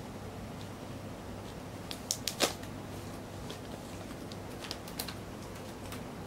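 Crinkly potato-chip-bag cat toy rustling and crackling as a cat moves about with its head inside it, with a quick run of sharp crinkles about two seconds in and a few more near the end.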